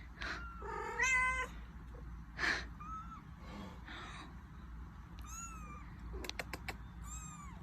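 Domestic cat meowing repeatedly: one fuller meow about a second in, then several short, high mews that fall in pitch. A few sharp clicks sound near the end.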